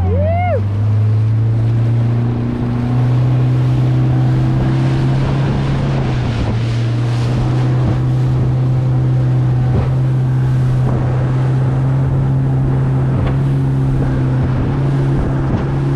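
Boat's outboard motor running under way. Its pitch climbs over the first couple of seconds as the throttle opens, then holds steady at speed, with wind on the microphone and water rushing past the hull.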